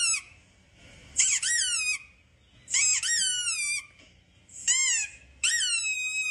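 A run of about five high-pitched, whining squeaks, each rising and then falling in pitch, the last one longer and drawn out. It is the kind of sound played to make a dog react.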